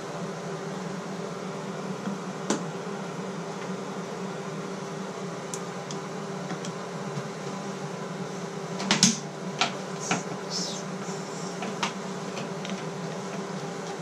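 Phillips screwdriver turning a screw out of a Delta shower valve's metal handle hub: scattered short metal clicks and scrapes, a cluster of them about nine to ten seconds in, over a steady hum.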